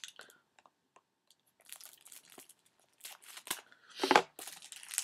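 Plastic shrink wrap being torn open and peeled off a Blu-ray case: scattered crinkles and crackles, with a louder crackle about four seconds in.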